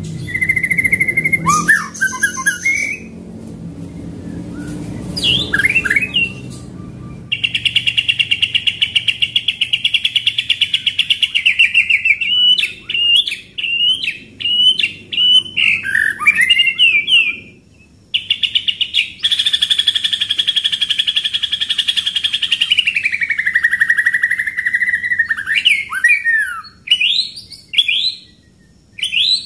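White-rumped shama singing: varied whistles and chirps, with two long, fast rolling trills, one about a quarter of the way in and one past the middle that drops in pitch near its end.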